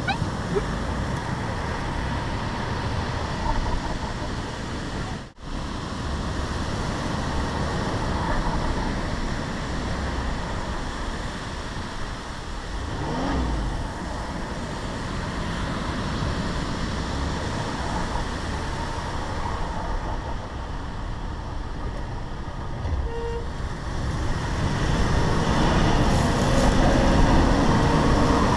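Range Rover Sport driving along soft beach sand, heard from a camera mounted on the outside of the body: a steady rushing noise of the moving vehicle, wind and tyres. The sound cuts out for an instant about five seconds in and grows louder near the end.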